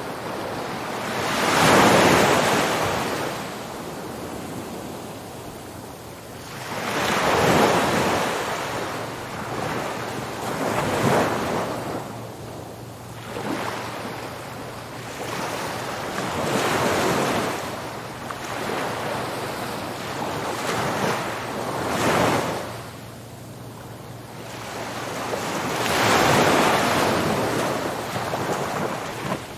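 Sea waves breaking and washing up a beach, in six rushing surges about every four to six seconds. The loudest surge comes about two seconds in.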